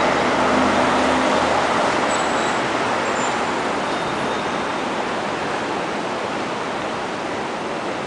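City street traffic: steady road noise of cars going by, with a nearby vehicle's engine hum loudest in the first second or two before the noise eases slightly.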